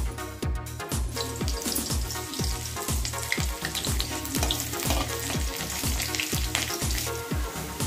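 Cumin seeds and chopped onion sizzling in hot oil in a metal kadai, stirred with a metal spatula; the sizzle starts about a second in. Under it runs background music with a steady beat of about two thumps a second.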